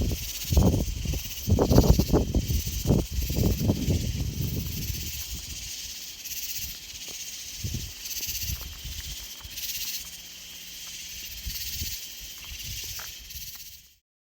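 Insects chirring in a steady, pulsing high buzz. Low thumps and rumbles sound over it for the first five seconds, and all sound cuts off abruptly near the end.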